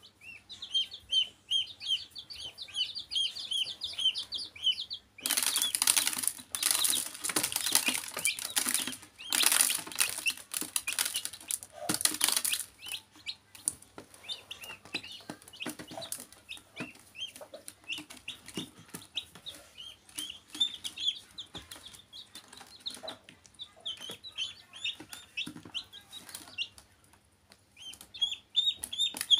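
Baby chicks and a duckling peeping in rapid, short, high chirps that fall in pitch. From about five seconds in to about thirteen seconds in, a louder burst of scuffling and wing-flapping noise in the plastic tub drowns the peeps.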